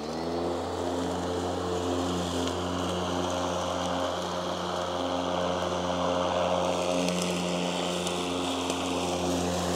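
Mowrator S1 remote-controlled battery lawn mower starting right at the beginning and then running steadily: an even electric motor and spinning-blade hum with a steady whir as it drives across the grass.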